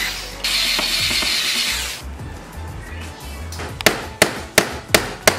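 A screwdriver turns a metal cam-lock bolt into a particleboard furniture panel with a grinding, ratcheting scrape. Near the end a rubber mallet taps a plastic fitting into the panel five times, about three taps a second.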